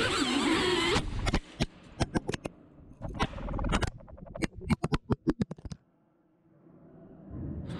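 An FPV quadcopter crashing: its motor whine cuts off abruptly about a second in. A rapid, irregular run of clattering knocks follows as the detached GoPro camera tumbles and bounces down a shaft, ending in a moment of near silence.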